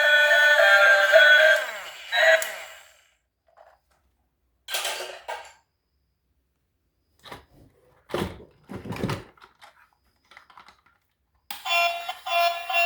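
Background music that cuts off after about two seconds. Then a short rustle and a few scattered sharp clicks and knocks, and the music starts again near the end.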